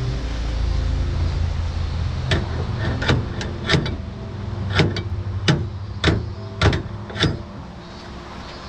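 A run of sharp knocks, about one or two a second, starting a little over two seconds in, over a steady low hum.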